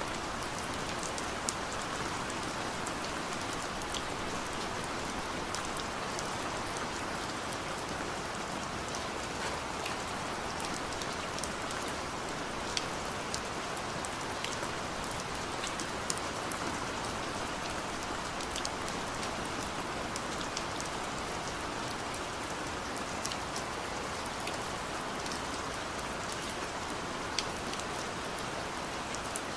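Steady rain falling, an even hiss with individual drops ticking sharply on a hard surface now and then.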